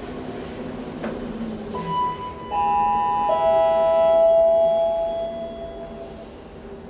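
Elevator chime in a 2009 SMW machine-room-less traction elevator: three ringing tones stepping down in pitch, each starting a little under a second after the last and ringing on for a few seconds. Before the chime come a click and a low hum that slides down in pitch and fades.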